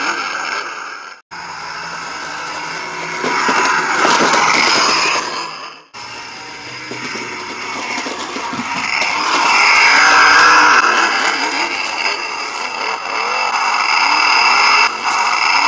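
NewBright 1:10 scale Grave Digger RC monster truck driving, its pitch rising and falling with the throttle. The sound cuts off abruptly about a second in and again about six seconds in, where the footage is edited.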